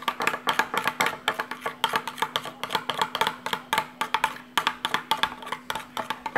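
Metal spoon stirring fast in a glass bowl, clinking against the glass several times a second, as a thick mix of body wash and hand soap is whisked toward slime.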